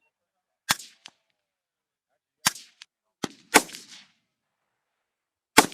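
Rifle shots fired one at a time at irregular intervals: five loud cracks, each with a short echo tail, and a couple of fainter cracks between them.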